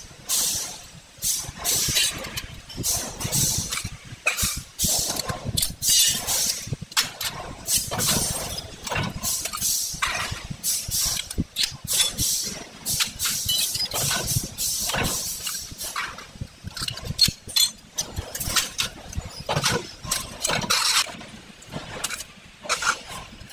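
Fully automatic rotary spot-welding machine for water-heater burner fire rows running: pneumatic cylinders and welding heads clunking and snapping in quick irregular succession, with short hisses of exhausting air, over a low steady machine hum.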